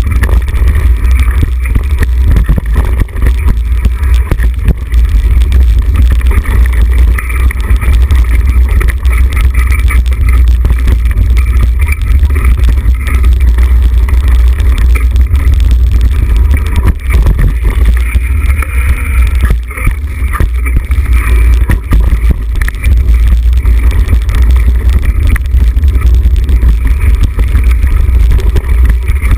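Wind buffeting the microphone of a mountain bike's action camera on a fast descent, a loud steady rumble, with the bike's tyres on dirt and frequent rattles and knocks as it runs over bumps and roots.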